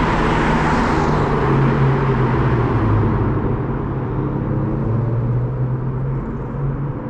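BMW E92 335i's N54 twin-turbo straight-six running through a home-made one-off exhaust with a valved silencer. The low exhaust note shifts in pitch and slowly grows quieter, and the hiss above it fades.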